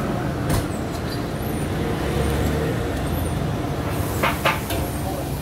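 A cleaver chopping through roast duck onto a wooden chopping block: one knock about half a second in, then three quick knocks near the end, over the steady rumble of street traffic.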